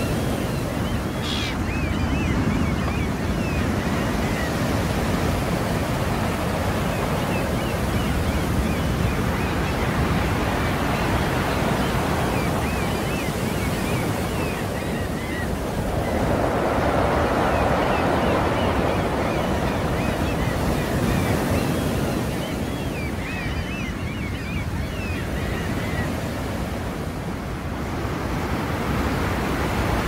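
Sea surf: waves washing ashore continuously, with one wave surging louder a little past halfway.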